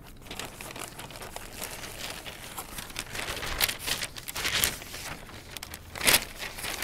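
Newspaper pages rustling and crinkling as they are turned and folded, in uneven bursts, with the loudest rustle shortly before the end.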